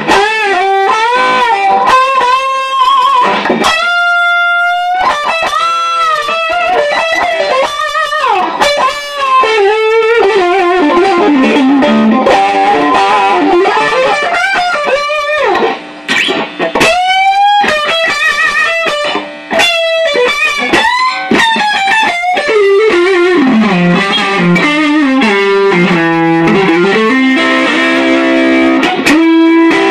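Electric guitar played through a Cali76 compressor pedal and overdrive, noodling single-note lead lines with frequent string bends and slides and a few long sustained notes.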